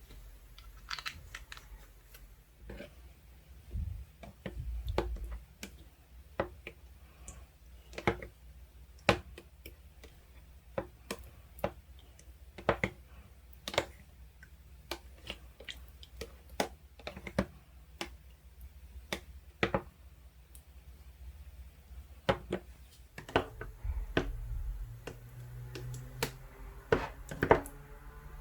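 Glossy jelly-like slime, mixed with soothing gel, being squeezed and pressed by hand, giving irregular sharp clicks and small pops with a few soft low thuds.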